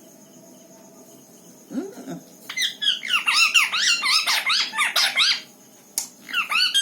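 Pet parrot giving a quick run of high, squeaky chirps, several a second, for about three seconds, after a short low call; the chirps start again near the end.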